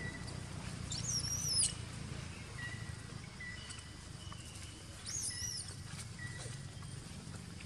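A young macaque squealing twice, short high-pitched calls that rise and fall, about a second in and again about five seconds in.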